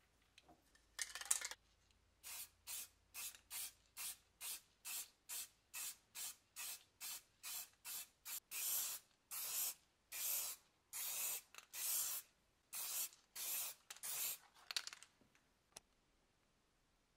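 Aerosol spray can spraying in short bursts, about two a second, then in longer sprays of half a second or more, ending about fifteen seconds in.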